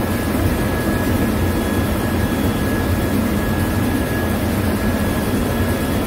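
Loud, steady drone of ship's engine room machinery, with a faint steady high whine over it.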